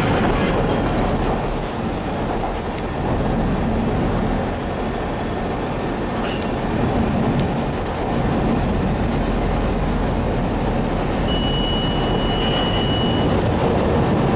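Chicago 'L' Orange Line rapid-transit train running at speed, heard from inside the car: a steady rumble of wheels on rail and traction motors. Near the end a thin high whine is held for about two seconds.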